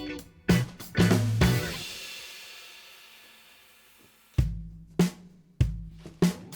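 Background music, a drum break: kick, snare and hi-hat hits, then a cymbal crash about a second and a half in that rings out and fades for a couple of seconds before the drums come back in.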